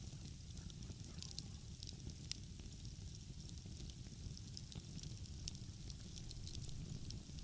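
Wood fire crackling, with frequent small sharp pops scattered irregularly, over a steady low rumble.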